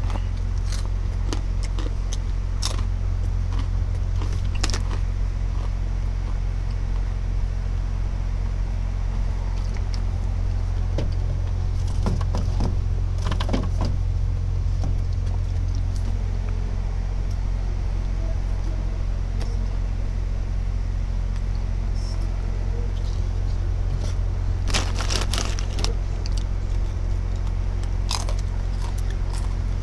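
Steady low machine hum, with scattered clicks and rattles that come thickest near the middle and again near the end.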